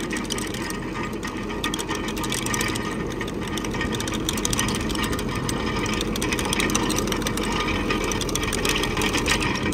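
Tractor-driven chain trencher digging with its chain lowered fully into the ground: a steady engine drone under a fast, continuous rattling clatter from the digging chain.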